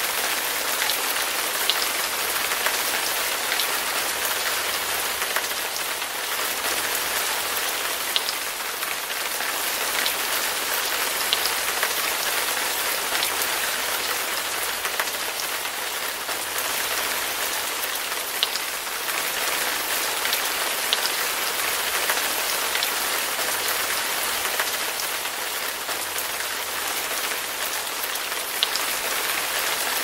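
Heavy rain pouring steadily onto a garden and paving, a dense even hiss dotted with scattered sharp ticks of single drops landing close by.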